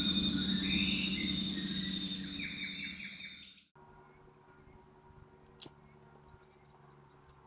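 Forest ambience: birds chirping over a steady high insect drone and a low hum, all of which cut off suddenly a little past the middle. What follows is much quieter, with faint insect chirps and a single sharp click.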